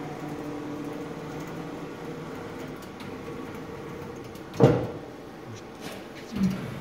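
Metal enclosure of a fiber laser marking machine being handled: one sharp knock about two-thirds of the way through and a softer thump near the end, over a steady hum.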